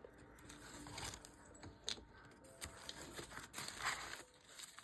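Faint handling noise: a keychain clicking lightly and its packaging rustling as it is turned over in the hands, in scattered small clicks and short rustles.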